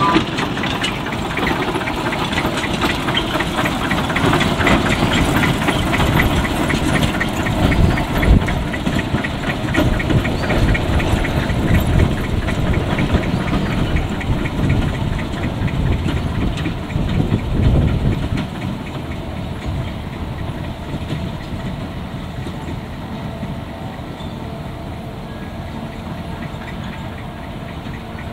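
Narrow-gauge peat train of loaded open wagons running along the track with a rapid clatter of wheels and couplings, a few heavier thumps among it, and a small diesel locomotive's engine running. The clatter eases off and grows quieter after about two-thirds of the way through.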